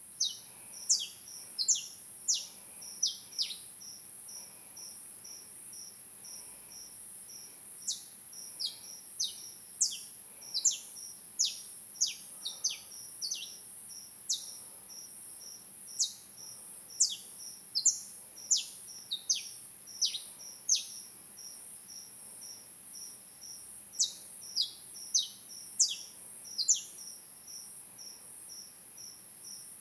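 Birds calling in quick, sharp, downward-sweeping chirps that come in clusters with short pauses, over a cricket chirping in a steady, even pulse.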